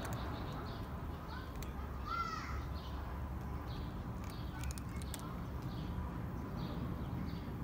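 Bird calls: a short rising-and-falling call about two seconds in, and a run of faint, evenly repeated high chirps, over a steady low outdoor background hum.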